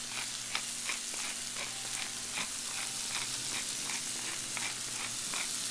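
Strawberries and sugar sizzling in hot butter in a cast-iron skillet: a steady frying hiss broken by frequent small crackles and pops.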